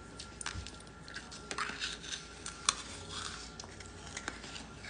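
Plastic bag of freeze-dried candy crinkling and rustling as it is handled. Scattered light clicks and taps, with one sharper click a little past halfway.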